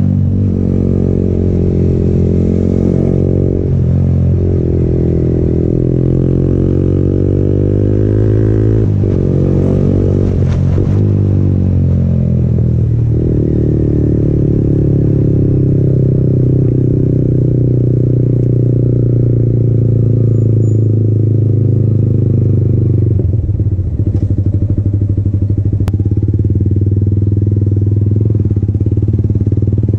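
Yamaha MT-15's single-cylinder engine running through an aftermarket Akrapovic exhaust, its pitch rising and falling several times over the first dozen seconds, then running lower and steadier as the bike slows.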